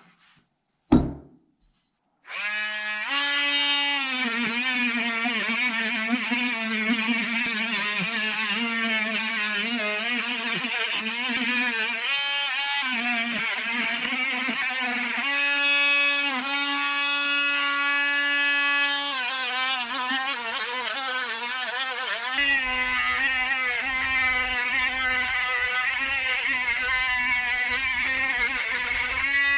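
A sharp click about a second in, then a handheld rotary tool with a small wire brush starts and runs at high speed, its motor whine wavering in pitch as the brush is pressed against a rusty steel part of an antique adjustable wrench.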